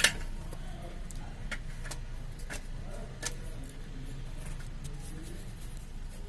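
Scattered light metallic clicks and knocks of clutch parts and tools being handled while a new clutch plate is fitted to the flywheel, over a low steady hum. The sharpest knock comes at the very start.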